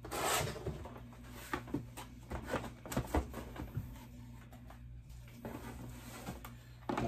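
Cardboard product boxes being handled and set down: a brief rustle at the start, then scattered light knocks and clicks over a low steady hum.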